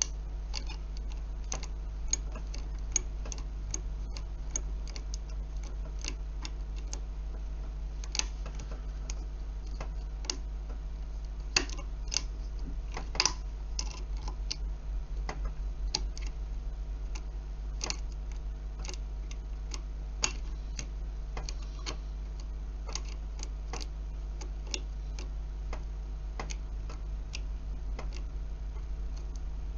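Irregular light clicks and ticks of a steel wire pick lifting the four levers inside a brass McCallum lever cupboard lock held under heavy tension, a few sharper clicks standing out. A steady low hum runs underneath.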